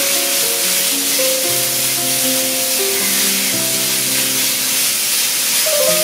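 Background music with held notes over minced pork sizzling as it is stir-fried in a nonstick pan.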